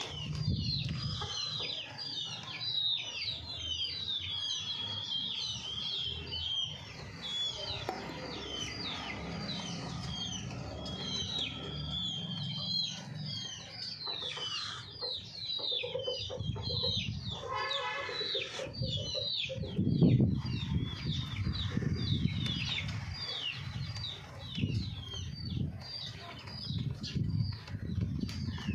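Chickens calling: a steady chatter of short, high chirps throughout, with one longer pitched call about two-thirds of the way in. Low thumps and flapping of wings, loudest just after that call.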